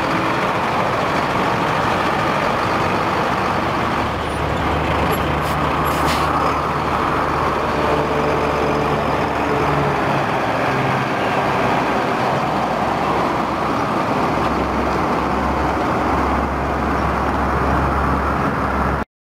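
1990 International 4900 fuel and lube truck's diesel engine running steadily, with the truck pulling away near the end.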